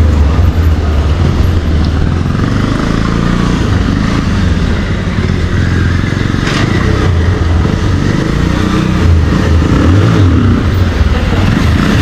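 Motorcycle engine running with a heavy low rumble. There is one short sharp crack about six and a half seconds in.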